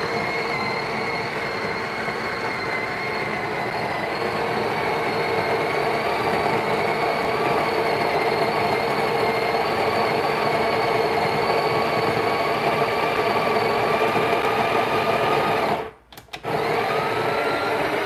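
Breville Barista Express built-in burr grinder grinding a single 19 g dose of espresso beans, a steady whir whose pitch creeps up near the end as the beans run out. It cuts out about sixteen seconds in and starts again briefly half a second later.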